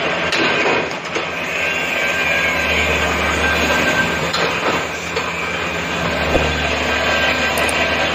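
Steady, loud mechanical din of sheet-metal workshop machinery, with a few sharp metal knocks.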